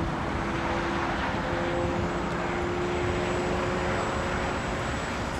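A vehicle engine running steadily over road noise, its hum rising slowly in pitch and fading out near the end.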